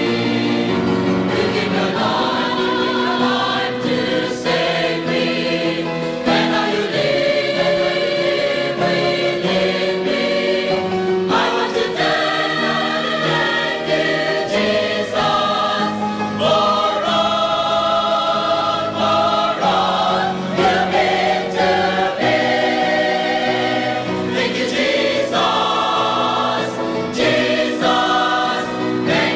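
Background music: a choir singing a Christian song in held, sustained chords.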